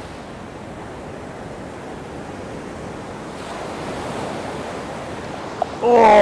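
Steady wash of breaking ocean surf. Right at the end a man lets out a loud, drawn-out "oh!" as a fish bites.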